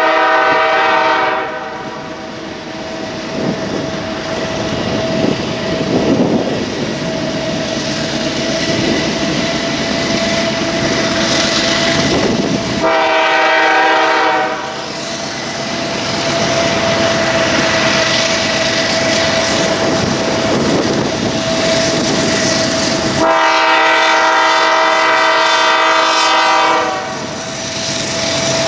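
A train passing while its locomotive horn sounds three times: one blast already sounding at the start and ending after about a second and a half, another about halfway through, and a longer one near the end. Between the blasts the train's wheels run over the rails with a steady rushing noise, and a steady high tone runs underneath.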